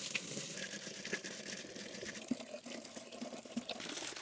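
Rain falling steadily, an even hiss with scattered drop ticks.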